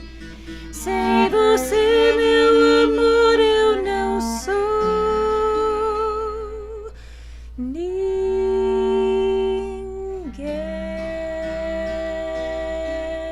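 Closing bars of a song by a small acoustic trio: long held notes with vibrato, from voice and strings, a short pause partway, then a final note held and dying away near the end.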